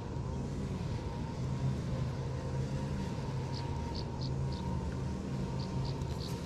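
A motor engine running steadily with a low drone. From about halfway through, a run of short, high chirps comes in over it.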